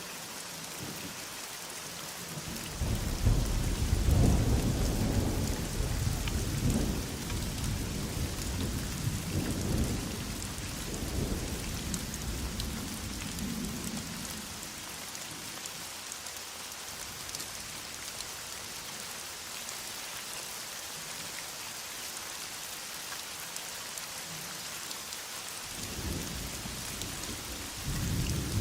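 Steady heavy rain with rolling thunder: a long low rumble starts about three seconds in, peaks soon after and fades over about ten seconds, and a second roll builds near the end.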